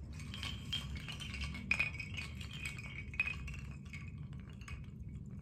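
Handmade bamboo and wood wind chime swinging as it is held up, its bamboo tubes and wooden pieces knocking together in a scatter of light clacks with a short ringing note, with a couple of sharper knocks about two and three seconds in.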